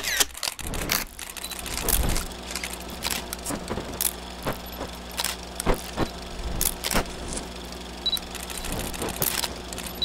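8mm film projector running: a steady low motor hum under hiss, with irregular clicks and pops of film crackle a few times a second.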